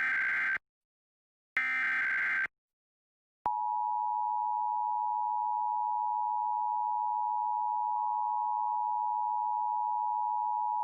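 Emergency Alert System test signal: the tail of one SAME digital header burst and then another, each about a second of harsh data noise with a second of silence between, followed about three and a half seconds in by the steady two-tone EAS attention signal, which holds unchanged.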